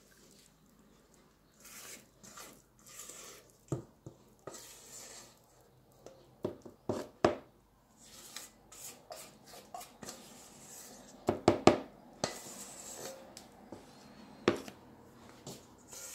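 Cake batter being scraped from a mixing bowl into a greased loaf tin: a utensil scraping and knocking against the bowl and the tin, with irregular taps in small clusters, the loudest a little past the middle.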